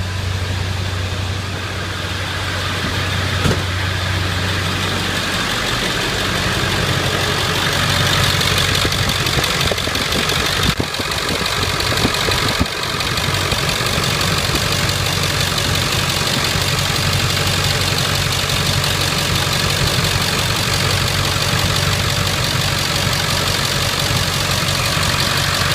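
2001 Ford Excursion engine idling steadily with the A/C on full. The sound grows fuller a few seconds in, and a few light knocks come through.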